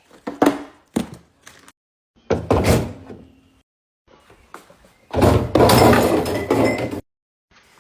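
Kitchen handling noise from a refrigerator being emptied: a few sharp clicks and thunks, then two stretches of clattering and knocking, the second one longer and louder.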